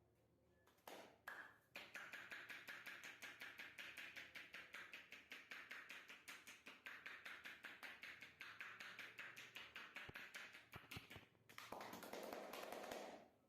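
Massage percussion: hands rapidly tapping and chopping on the body in a fast, even rhythm of about five or six strikes a second. Near the end the strikes give way to a second and a half of steadier noise.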